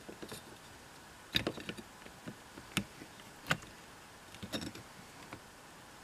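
A handful of separate sharp clicks and small metal knocks from an entry door's paddle latch being fitted back into the door and worked by hand.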